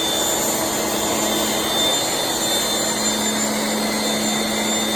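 Electric 1700 psi pressure washer running steadily, its motor-driven pump humming with a high whine over the hiss of soap being sprayed through a snow-foam cannon.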